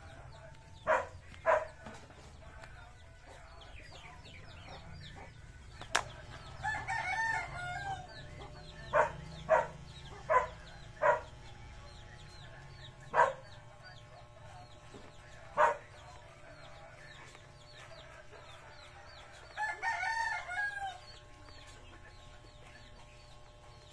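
Chickens calling: a rooster crows twice, about a second each time, and there are several short, sharp clucks in between. Faint high chirping of small birds runs underneath.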